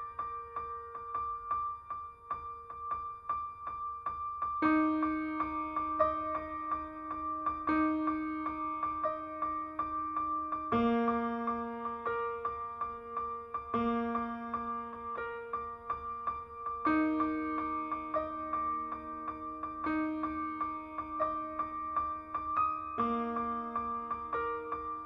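Background piano music: a quickly repeated high note over gentle chords that change every few seconds.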